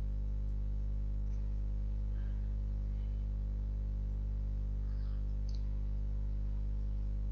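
Steady low electrical hum with a ladder of buzzing overtones, the mains hum of the recording setup, holding at one level throughout. A faint click or two sits on top of it.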